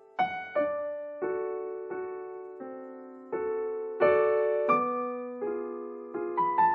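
Slow, gentle solo piano music: single notes and chords struck about once a second, each left to ring and fade.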